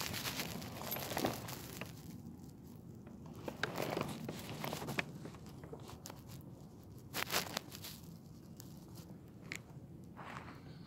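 Irregular crunching and scraping of shoes and hands on rock and grit while climbing, with louder crunches about a second in, around the middle and about two thirds of the way through.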